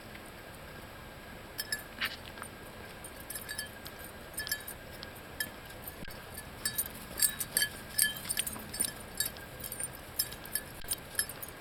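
Light metallic jingling and clinking in irregular bursts, thickest and loudest in the middle stretch, like small metal pieces shaken with movement.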